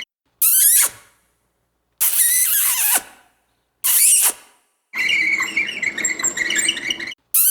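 Short high-pitched squeals that glide sharply downward in pitch, four of them cut off by silences, with a longer rough, noisy stretch between the third and fourth.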